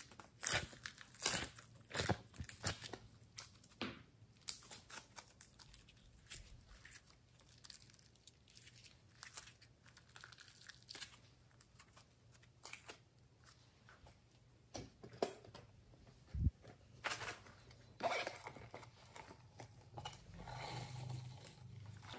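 Soft, sticky slime being squeezed and kneaded by hand, giving irregular crackles, clicks and squelches. They come thickly in the first few seconds, thin out, then cluster again near the end.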